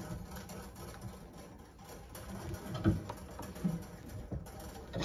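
Quiet handling of a steel brake-line flaring tool, its clamp bar and yoke clinking lightly, with a couple of small knocks about three seconds in.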